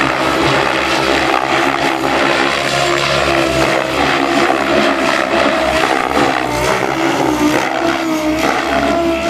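Electric SAB Goblin 700 RC helicopter flying aerobatics: the rotor blades chop the air while the motor and gear whine rises and dips in pitch as the manoeuvres load the rotor.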